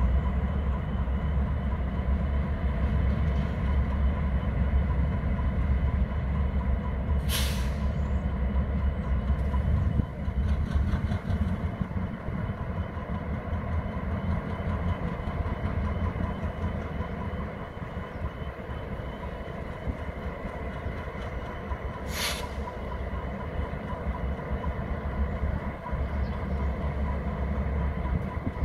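Diesel locomotives running as they back slowly toward the train to couple, a steady low rumble. Two short hisses of released air, typical of air brakes, about 7 seconds and 22 seconds in.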